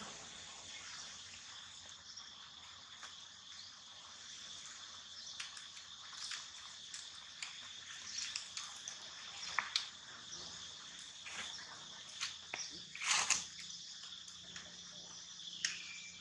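Steady high chirring of insects, with scattered crackles and rustles of dry leaf litter and one louder rustle about three quarters of the way through.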